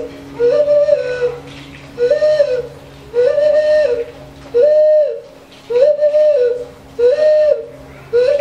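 Hooting whistle notes blown at the mouth with both hands cupped around it. A single middle pitch sounds over and over, about seven times, each note held under a second with a quick slide up at its start and down at its end.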